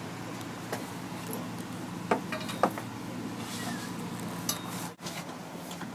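Clambering noises of a person climbing up through a monster truck's chassis and roll cage: a few sharp clinks and knocks against the metal tubing, the two loudest a little after two seconds in and about half a second apart, over a steady low hum.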